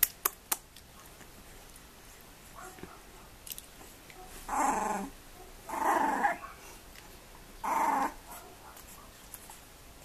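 Bulldog puppies play-fighting, one giving three short, rough growls about a second apart in the middle of the stretch, with a few light clicks near the start.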